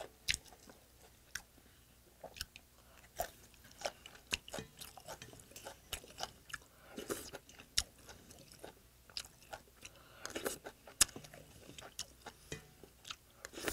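Close-miked chewing and biting of kimchi, with some crunching, and scattered sharp clicks of a spoon and chopsticks against a stainless steel bowl.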